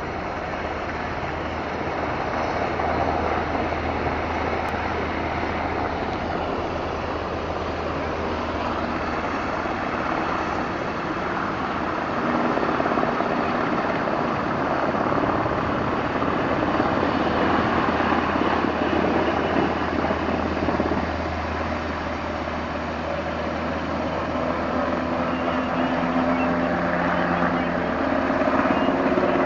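Black Hawk military helicopter flying over, its rotor and turbine noise a steady, continuous sound that grows louder about halfway through and again near the end.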